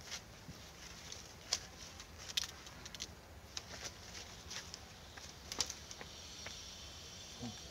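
Quiet outdoor ambience with faint, irregular clicks and small rustles. A steady high insect buzz comes in near the end.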